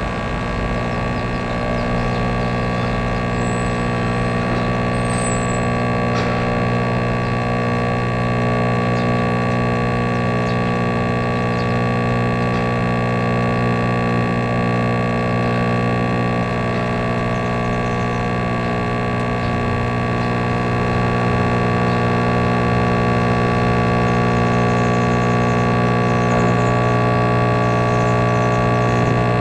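Amplified electronic drone music played from a laptop: a dense, sustained wall of many steady held tones with a deep hum at the bottom, getting a little louder about two-thirds of the way through.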